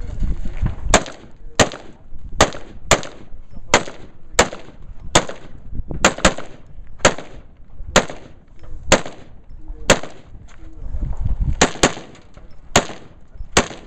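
A firearm fired in a steady string of single shots, about eighteen sharp cracks, each with a short echo, coming roughly every two-thirds of a second.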